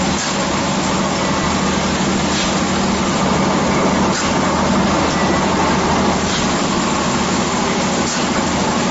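Paper-pulp egg tray forming machine running: a steady mechanical hum and hiss, with a faint brief stroke about every two seconds.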